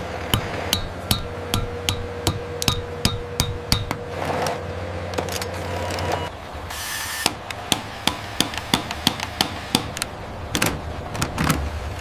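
A small hammer tapping on wooden beams, light sharp strikes about two to three a second. The taps come in two runs with a pause of a couple of seconds between them, over a low steady hum.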